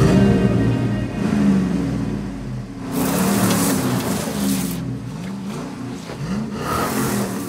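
Car engine revving up and down over and over as a drive wheel spins in loose sandy dirt, the car stuck. From about three seconds in, the hiss of the spinning tyre throwing dirt joins the engine.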